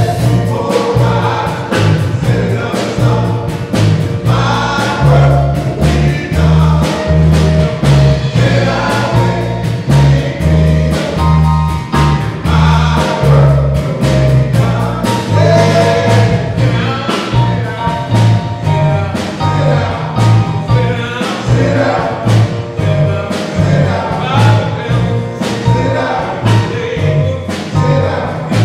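Men's gospel group singing together over a steady beat and a walking bass line.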